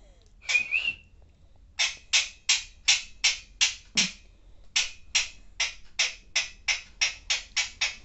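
Young Alexandrine parakeet making a long run of short, breathy 'ha' sounds, about three a second with two brief pauses: its imitation of laughter.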